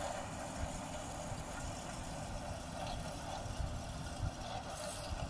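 Tractor engine running steadily as it pulls a rear-mounted broadcast spreader across the field.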